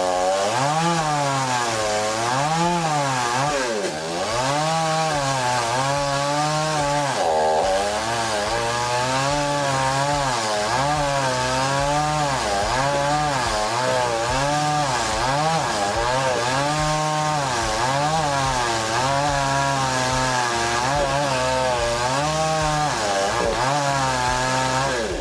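Chainsaw running at high throttle while cutting wood, its engine pitch dipping and recovering about every one and a half seconds as the chain bites into the cut.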